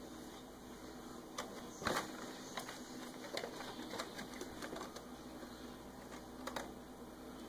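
Kittens scrabbling and batting at a cardboard Fresca box: irregular light taps and claw scratches, with a sharper knock about two seconds in and another near the end.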